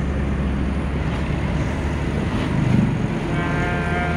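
Engine and road noise inside a moving car, a steady low drone. A brief louder swell comes a little before the end, and a steady pitched tone joins about three seconds in.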